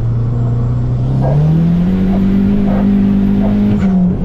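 Turbocharged Dodge Neon SRT-4 engine accelerating, heard from inside the cabin: its pitch rises over about a second, then holds high, with a brief dip near the end.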